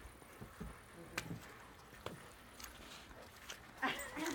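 Two dogs playing on snow: scattered soft thumps and crunches of paws, then a brief dog vocalisation near the end.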